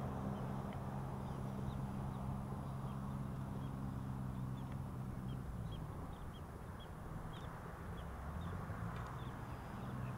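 Foam RC airplane's motor and propeller running in flight: a steady hum that fades and drops in pitch about halfway through, then picks up again near the end. Small birds chirp faintly throughout.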